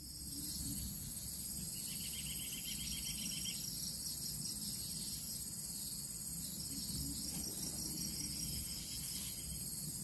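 A steady, high-pitched drone of insects, with a short, fast trill joining about two seconds in.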